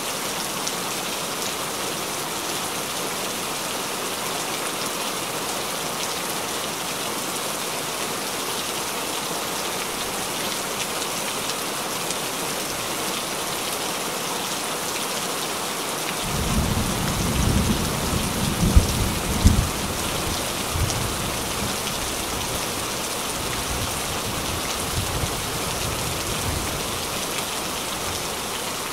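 Steady rain falling on the surface of a shallow pond. About halfway through, a low rumble sets in, loudest for a few seconds with a couple of sharp peaks, then continuing more faintly under the rain.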